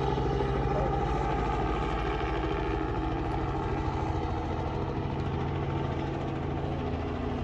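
Helicopter flying past, a steady drone of rotor chop and engine that fades slightly.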